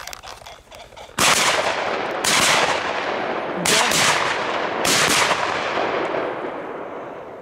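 Four shotgun shots about a second apart, each trailing off in a long echo.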